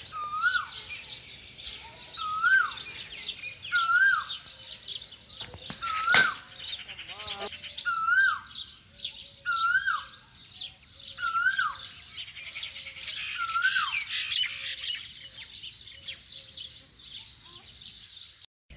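Many birds chirping in a dense chorus. One bird repeats a short call that rises and then falls, roughly every second and a half. A single sharp click comes a little past six seconds in.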